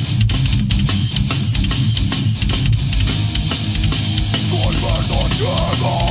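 Death crust metal band playing: heavily distorted guitars over dense, fast drumming, with a wavering line bending in pitch coming in over it near the end.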